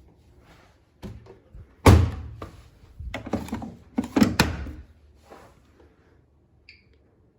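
Several dull thuds and knocks from a Siemens iQ500 front-loading washing machine. The loudest comes about two seconds in, followed by a cluster of knocks over the next two and a half seconds.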